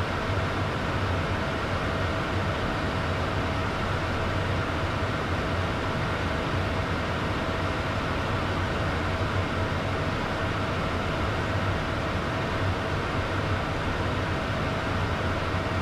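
Steady cockpit noise of a Beechcraft Premier 1A business jet at cruise: a continuous rush of air with a low hum and a thin steady whine, unchanging throughout.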